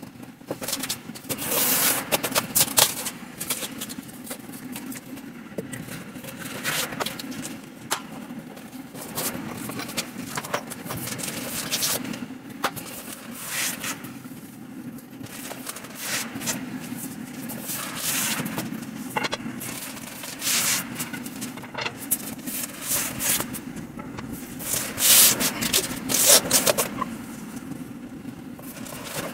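Cardboard carton and packing being handled as flat-pack furniture parts are unpacked: irregular rustling, scraping and sliding of cardboard and paper, with a steady low hum underneath.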